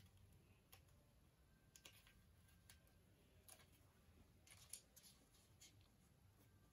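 Near silence, with faint scattered clicks and rustles from a paper ring and a plastic drinking straw being handled.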